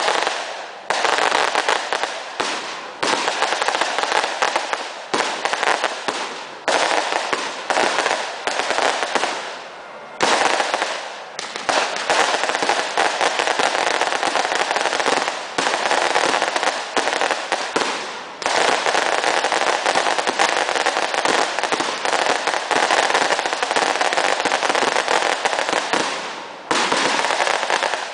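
Fireworks going off in a dense barrage of rapid cracks and pops that run together into a continuous crackle, broken by brief pauses a few times.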